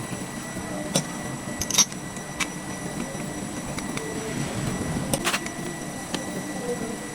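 A few sharp clicks and knocks, as of tools and small metal parts being handled, over a steady background hum.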